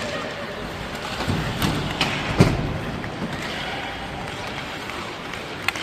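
Ice hockey game sound: a steady rink noise with scattered sharp clacks of sticks and puck. The loudest is a single hard knock about two and a half seconds in.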